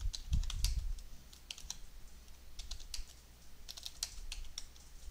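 Typing on a computer keyboard: irregular keystroke clicks in short runs with pauses, as a terminal command is keyed in.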